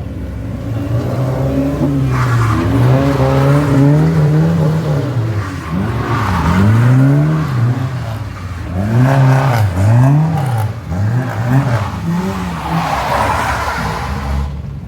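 A car engine revved hard, its pitch rising and dropping over and over as the driver works the throttle through a drift, with tyres squealing and skidding in several bursts.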